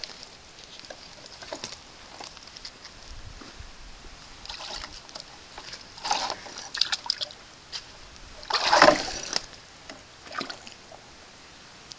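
Water splashing and sloshing in a plastic bucket as a green monkey paws and grabs at goldfish in it. The splashes come in irregular bursts, the biggest about two-thirds of the way through.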